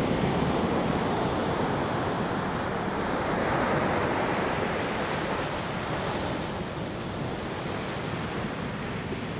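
Ocean surf breaking and washing up the beach, swelling about three to four seconds in.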